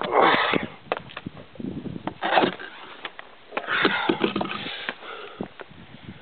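A climber breathing hard in three loud rushes of breath about two seconds apart, with short knocks and scrapes from handling the camera against the rock in between.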